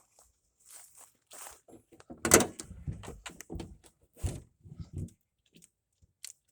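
Hands handling parts and tools: scattered rustling and light clicks, with a sharp knock about two seconds in and a dull thump about four seconds in.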